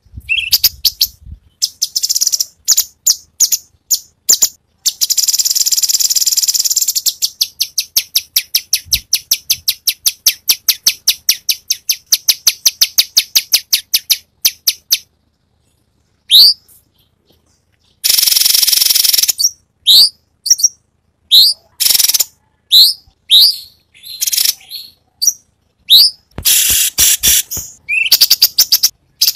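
Cucak cungkok singing: a fast run of short, sharp notes at about four or five a second, with a dense rattle early on; a brief pause; then a harsh buzzy burst followed by a string of quick upward-slurred whistles.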